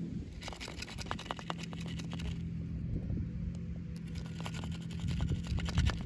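Packaging being handled during an unboxing: two spells of rapid crinkling and scratching, the first about half a second in and the second after a pause of about two seconds. A steady low hum runs underneath.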